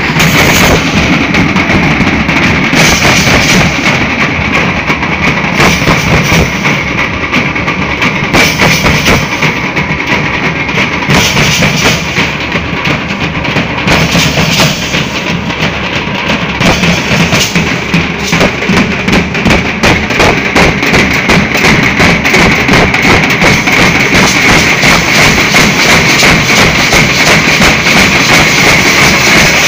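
Nasik dhol ensemble, many large barrel drums beaten together in a loud, continuous, dense rhythm.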